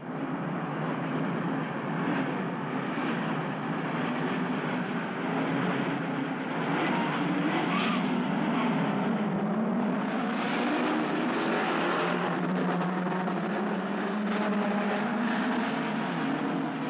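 Many racing sedan engines running together as the field pulls away, a mix of Ford Falcon GT-HO V8s and Holden Torana XU-1 six-cylinders, their overlapping tones wavering up and down with revving.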